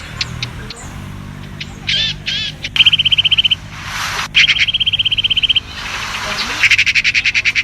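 Wild animal calls: rapid trills repeated at one steady high pitch, each about a second long, with a few warbling chirps about two seconds in.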